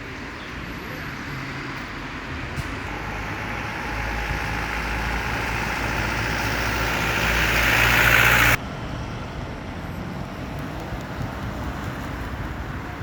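A road vehicle getting steadily louder as it draws close, with a low rumble under a rising hiss. It cuts off suddenly about eight and a half seconds in, leaving quieter traffic noise.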